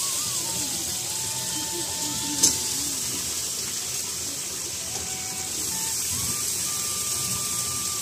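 Potato and cauliflower pieces frying in oil in a kadhai over a wood fire, a steady sizzling hiss. One sharp tap about two and a half seconds in.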